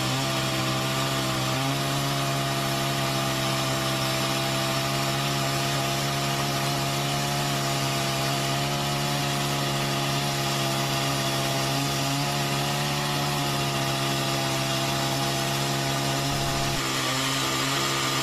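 Chainsaw running at steady high revs while cutting through a log under its own weight, the engine note holding one constant pitch with a slight shift about two seconds in and again near the end.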